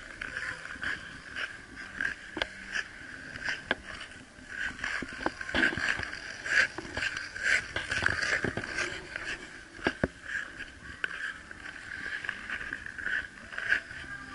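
Ice skate blades on ice: a steady gliding hiss broken by frequent irregular sharp scrapes from strides and edges cutting in.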